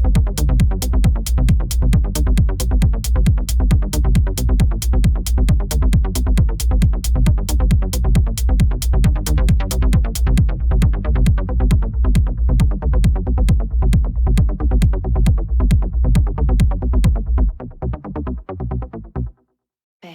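Electronic techno-trance background music with a steady, fast beat and heavy bass. Near the end the bass drops out and the track stops briefly.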